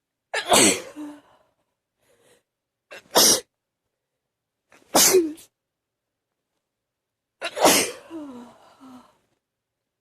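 A person sneezing four times in a row, roughly two to three seconds apart, each sneeze a sudden sharp burst, several with a short vocal sound trailing after it.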